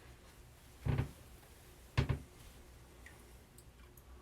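Two short knocks about a second apart, hard objects set down or tapped on a hard surface, against a faint room background.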